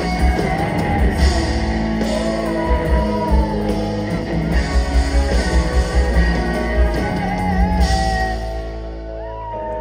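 Live rock band playing: electric guitars, bass, drums and keyboards with sung vocals, heard through the PA from the audience. The band drops in level about eight seconds in as the song draws to its close.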